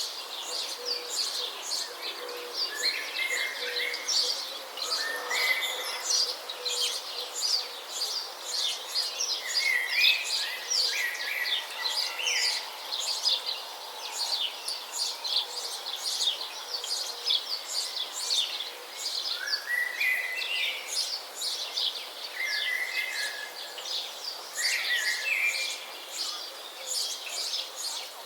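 Many small songbirds chirping and singing outdoors, a dense chorus of quick high chirps, with a lower short stepped phrase repeated every few seconds.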